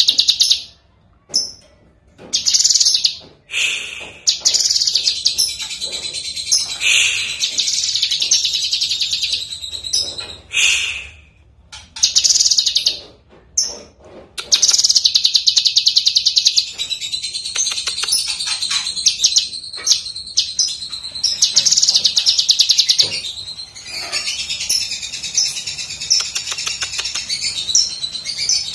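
Cucak kinoi (blue-masked leafbird) singing. Short bursts of high, fast song come with pauses at first. From about halfway the song runs almost without a break, in rapid trills.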